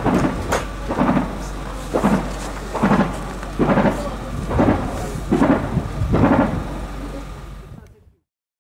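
Distant gunfire or blasts from the front line: a rapid, uneven series of heavy booming reports, roughly one or two a second, over a steady low hum, fading out near the end.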